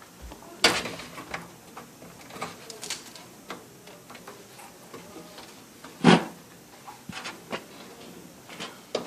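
Clicks and knocks of an ATX PC case being handled as its side panel is worked loose, with two louder clunks, one about a second in and one about six seconds in.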